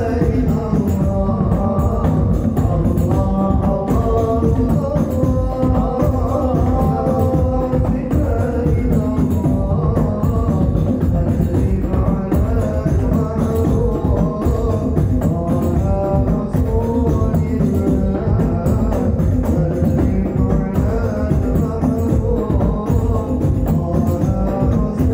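Hadroh ensemble playing: hand-struck rebana frame drums and a large bass drum keep a dense, steady rhythm, with a melodic line running over it.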